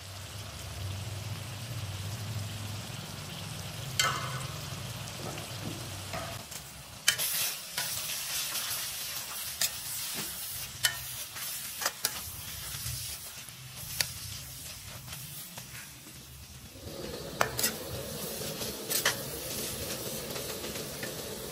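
Shredded chicken and vegetables sizzling in oil in a karahi while being stirred and tossed with a steel spoon. The spoon clicks and scrapes against the pan every second or two.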